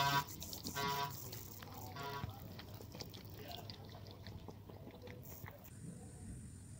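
A cat gives three short cries in the first two seconds, each fainter than the last, followed by soft wet licking as the mother cat cleans her newborn kitten.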